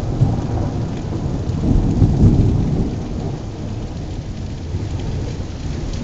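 Thunder rumbling over steady rain, the rumble swelling about two seconds in and then easing off.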